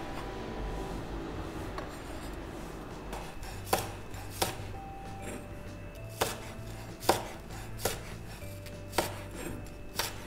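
Chef's knife slicing a spring onion on a wooden cutting board: about seven slow, separate cuts, each ending in a knock of the blade on the board, starting a few seconds in.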